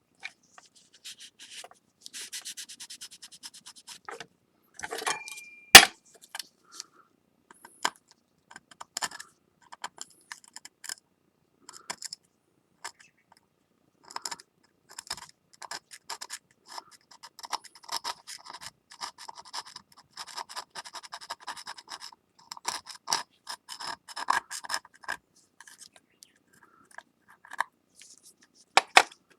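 Sandpaper, 240 grit, wet-sanding a glazed stoneware plate: short rubbing and scratching strokes come in runs as cured lacquer is cleaned off the glaze. A single sharp knock comes about six seconds in.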